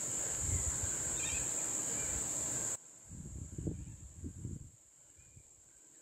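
Steady high-pitched drone of insects in the surrounding bush. It cuts off abruptly about three seconds in, leaving a quieter stretch with a few soft low thumps.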